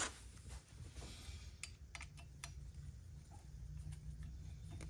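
A few faint, light clicks of hand-handling at the bench, bunched a little under two seconds in, over a low steady hum.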